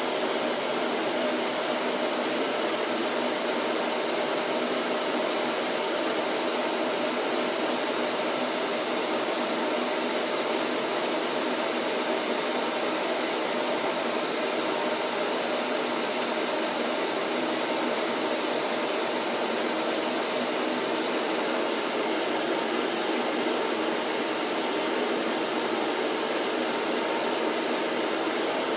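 Vacuum cleaner running steadily: a constant whooshing hum with a held tone, without change.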